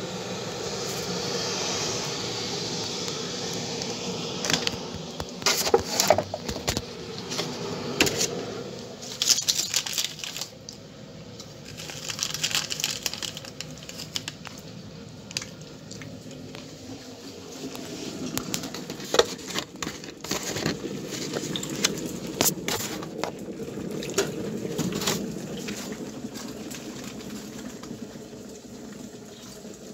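Kitchen sounds of a mug of tea being made: a steady hiss of water, with scattered sharp clinks and knocks of the mug and utensils.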